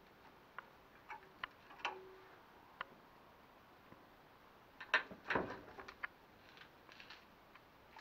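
Handling noise from a small handheld camera being moved about: scattered light clicks and taps, with a short cluster of louder knocks about five seconds in.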